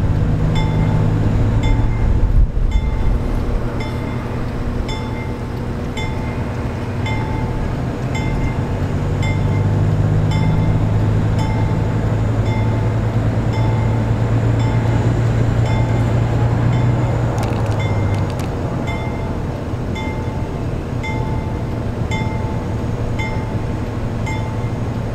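NYC Subway diesel work locomotive running slowly with its bell ringing steadily, about one and a half strokes a second, over the low drone of its diesel engine, which grows louder for a while midway.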